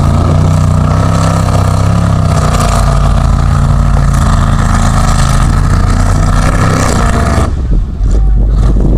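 Lifted Chevy pickup's engine revving high and steady as the truck drives through a mud bog, then the revs drop off about seven and a half seconds in.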